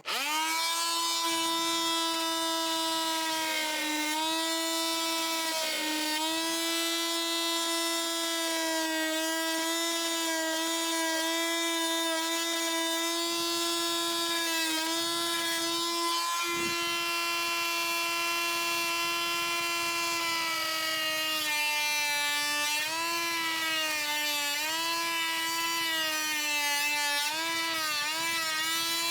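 VEVOR electric oscillating multi-tool switched on and cutting a hinge recess into wood: a steady high motor whine whose pitch sags briefly each time the blade bites harder, more often near the end.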